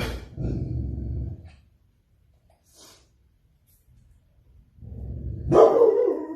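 A dog barking: a low, rough vocalisation lasting about a second right at the start, then a longer, louder bark near the end.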